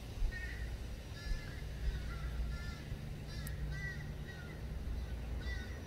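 Birds chirping in the background, many short high calls scattered throughout, over a faint low hum.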